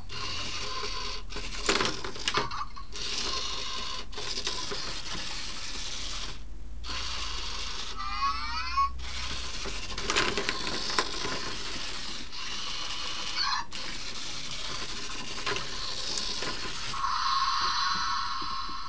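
Zhu Zhu Pets robotic toy hamster running through its plastic track: a steady motor whir with plastic clicks and rattles that cuts out briefly several times, a short rising squeak about eight seconds in, and a longer chirping sound near the end.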